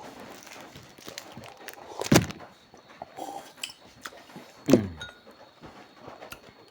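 Close-miked mukbang eating sounds: quiet chewing and mouth noises with two loud, sudden mouth sounds about two seconds and about four and a half seconds in, each trailing off in a falling tone.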